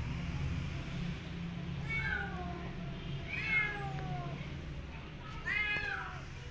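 A kitten meowing three times, high thin meows that slide down in pitch, the last two louder than the first.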